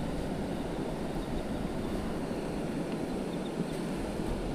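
Steady wind noise on the microphone over the low hiss of surf.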